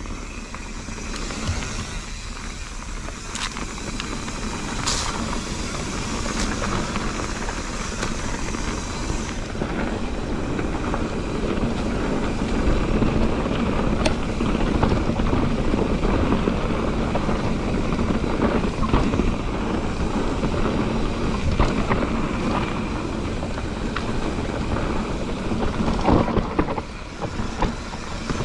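Mountain bike riding a dirt trail: tyre rumble, rattling and wind buffeting on the chest-mounted camera's microphone, with scattered knocks. The noise grows louder about a third of the way in as the pace picks up.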